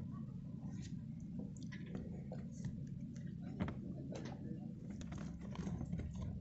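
Faint handling noises, scattered small ticks and soft squishing, as a Raymarine ST6002 autopilot display's plastic housing is pressed by hand into its sealant-bedded cutout, over a low steady background rumble.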